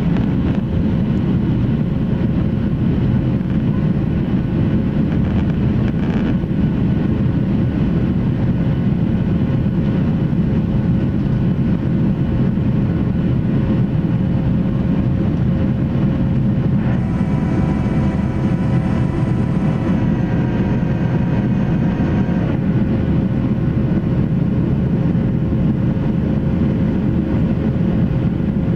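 Boeing 737-700 cabin noise in the climb: the steady roar of its CFM56-7B engines and rushing air, heard from a window seat over the wing. About 17 seconds in, a whine made of several steady tones joins it for about five seconds and then stops.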